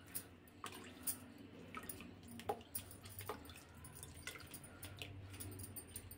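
Faint, irregular clicks and scrapes of a steel spoon pressing wet amla pulp against a steel mesh strainer, squeezing the juice out.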